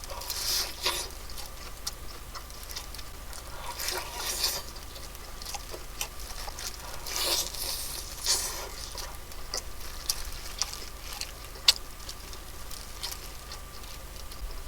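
Close-up mukbang eating sounds: irregular bursts of crunching and chewing on crispy fried chicken, with a few sharp clicks.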